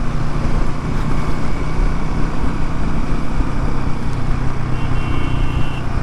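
Royal Enfield Himalayan 450's single-cylinder engine running at a steady cruise, under a constant rush of wind and road noise.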